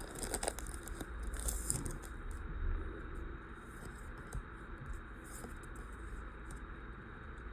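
Foil Pokémon card booster pack being torn open and handled, crinkling most in the first two seconds, then quieter rustling and small taps of cards being handled.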